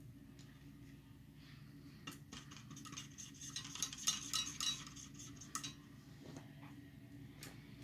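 A paintbrush being rinsed, swirled and tapped in a container of water, its handle clinking rapidly against the container, densest and loudest in the middle.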